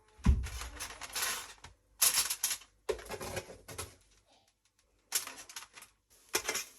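Kitchen clatter of serving food into meal containers: utensils scraping and knocking against pans and containers in a string of short bursts, the first about a quarter second in, the loudest.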